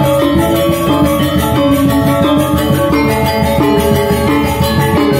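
Balinese gamelan gong ensemble playing: bronze metallophones ringing in dense, quick strokes over kendang drums, with notes changing in a steady rhythm.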